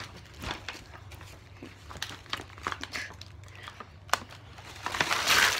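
Handling noise close to the microphone: scattered crinkling and small clicks, a sharp click about four seconds in, and a louder rustle near the end.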